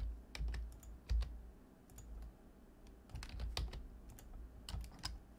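Computer keyboard keys tapped at irregular intervals as Blender shortcuts are entered, with some quick clusters of presses.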